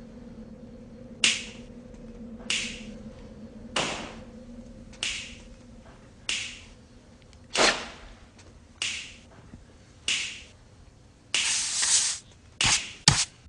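A group of dancers snapping their fingers in unison, eight sharp snaps about every 1.25 seconds over a faint steady hum. Near the end a longer hiss and a few quicker hits come in as the music starts again.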